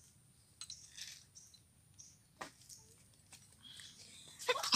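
Scattered light metallic clicks and clinks of a hand tool against a hand tractor's metal gearbox casing during repair. There is a sharper knock about two and a half seconds in and a quick, louder run of clicks near the end.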